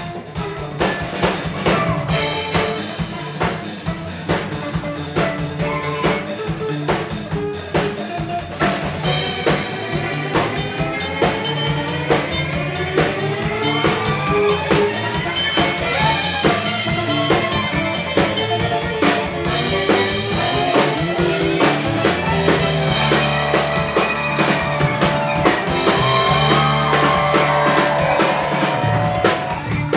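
Live country band playing a fast instrumental passage: fiddle leading with sliding, gliding notes over a steady drum kit beat, bass and electric guitar.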